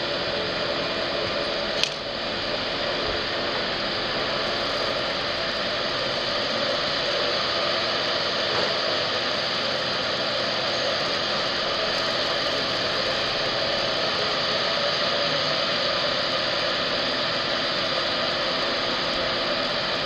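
Steady machine noise with a faint hum, like a building's ventilation running, and a single sharp click about two seconds in.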